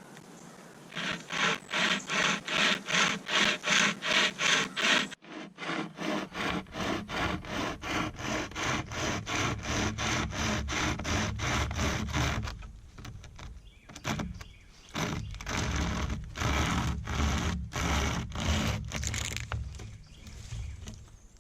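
Flexible pocket chainsaw pulled back and forth through a tree limb, about three quick rasping strokes a second. In the second half the strokes come slower and more unevenly as the cut pinches and the chain has to be pulled more slowly.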